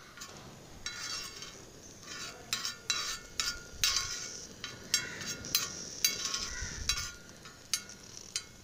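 A metal utensil scraping and clinking on a flat iron tawa griddle in quick irregular strokes as melting ghee is spread across it.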